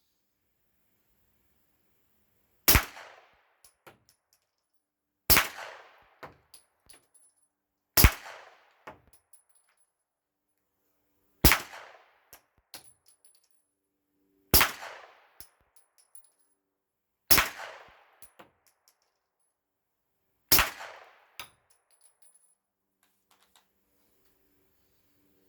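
Seven suppressed shots from a CZ P-07 pistol with a Rugged Obsidian 9 suppressor, fired with supersonic ammunition, spaced roughly three seconds apart. Each shot is a sharp crack followed by a fading tail and a few light ticks.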